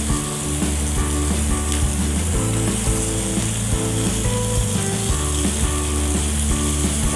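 Banana-leaf parcels of tilapia sizzling steadily in oil on a hot grill pan, under background music with a repeating melody and bass line.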